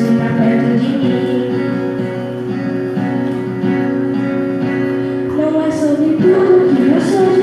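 A song with acoustic guitar accompaniment and a sung voice. The voice line is heard in the first second or so, eases off through the middle while the accompaniment carries on, and comes back strongly about five seconds in.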